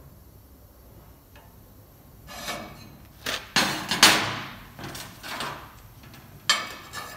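Pieces of steel sheet being slid and set down on a steel plate: a scrape, then a run of ringing metal clanks. The loudest clank comes about four seconds in, and another comes near the end.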